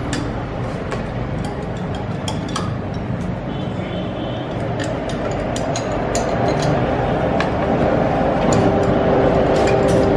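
Scattered light metallic clicks and clinks as push rods and loose valve-train parts are handled and drawn out of an old Royal Enfield Bullet engine's cylinder head. Underneath is a steady background hum that grows louder in the second half.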